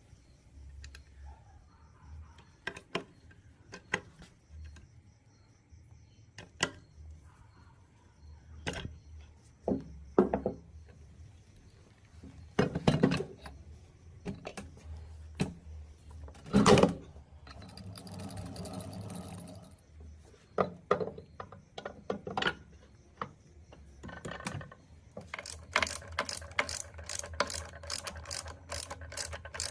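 Metal parts and tools clinking and knocking while working on an old gearbox, with a short scraping stretch midway. Near the end comes a quick, even run of clicks, about four or five a second, in the manner of a ratchet.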